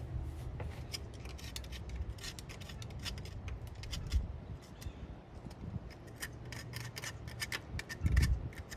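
Irregular light metallic clicks and scraping from hands and tools working on a Farmall Cub tractor's engine, over a low rumble, with a heavier knock about four seconds in and another near the end.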